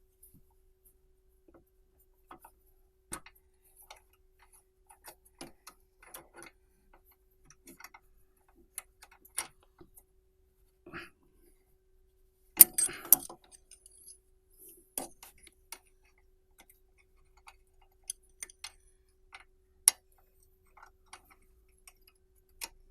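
Irregular metallic clicks and clinks of hand tools and parts being handled at a car's brake caliper during guide-pin replacement, with a louder clatter about halfway through. A faint steady hum sits underneath.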